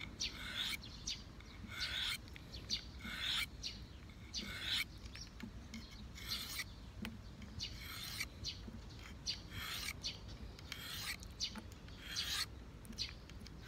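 Folding-knife blade drawn repeatedly across a Victorinox diamond sharpening stone: about a dozen short rasping strokes, roughly one a second, sharpening a damaged edge.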